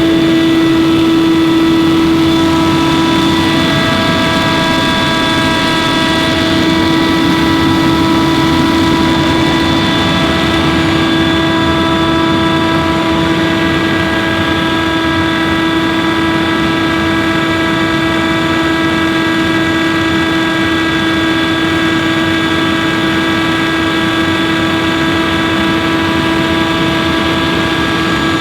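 Scag Windstorm stand-on leaf blower running steadily at working speed, its engine and fan giving a loud, constant whine over a rush of air.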